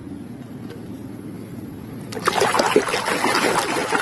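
Water splashing and sloshing as a hand swishes a toy through it, starting about two seconds in over a quieter steady water background.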